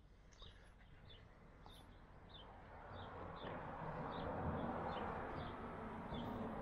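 A small bird chirping steadily, short high chirps about two to three a second, with a soft rushing noise swelling underneath from about halfway through.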